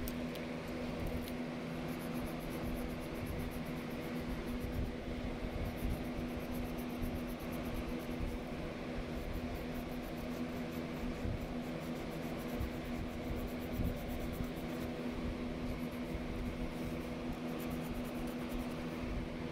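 A steady mechanical hum with a few low held tones runs throughout. Over it, a pencil scratches faintly and rapidly on sketchbook paper in stretches as it shades.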